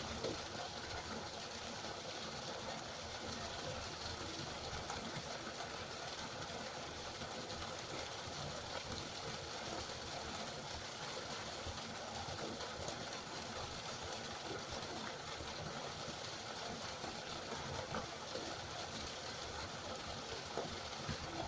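River water flowing steadily, an unbroken rushing with small splashes and ticks scattered through it.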